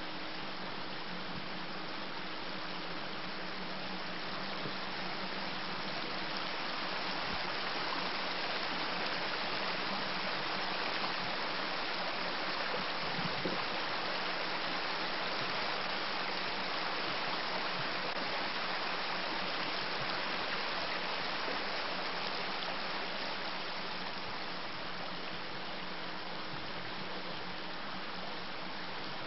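Shallow rocky creek rippling over stones and riffles: a steady rush of running water, a little louder through the middle stretch.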